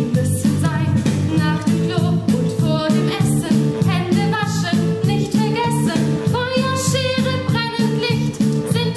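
A song from a stage musical: a woman singing over a band accompaniment with a steady beat.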